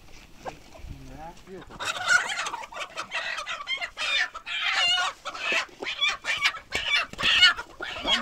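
Chickens squawking and cackling in alarm as they are chased and grabbed by hand, a dense run of harsh, rapid calls that starts about two seconds in and keeps going.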